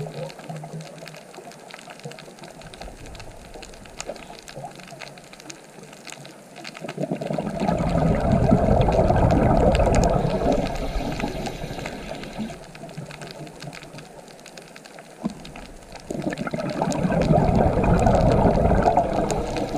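Underwater recording of a scuba diver's exhaled bubbles from the regulator, rushing up in two long swells of about three to four seconds each, the first beginning about a third of the way in and the second near the end, over a quieter background of faint crackling.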